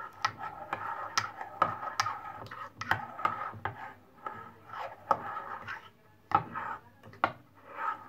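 Metal spoon stirring in a ceramic mug, scraping and clinking against the sides in many quick clicks with a faint ringing tone from the mug.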